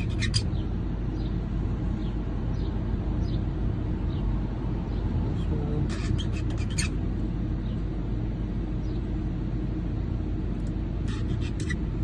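A motor running steadily with a low hum, with a few light clicks about six seconds in and again near the end.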